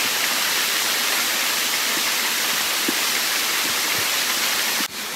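Waterfall rushing as a steady, even hiss of falling water. Near the end it drops abruptly to a quieter hiss.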